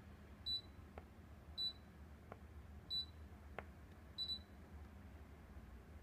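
Mitsubishi MSZ-GE225-W air conditioner giving a short high beep four times, about once every 1.2 seconds, acknowledging each press of the remote's mode button as it cycles through the operating modes. Faint clicks fall between the beeps.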